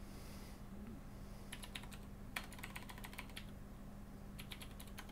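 Computer keyboard typing in three short runs of keystrokes, faint, over a steady low hum.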